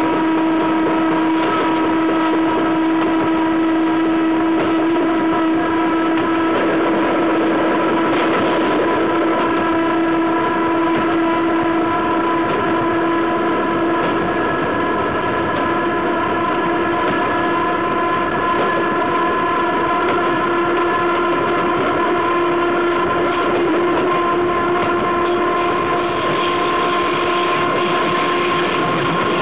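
Freight train wheels rolling on the rail, heard close to the bogie, with a steady pitched whine held over the rumble throughout.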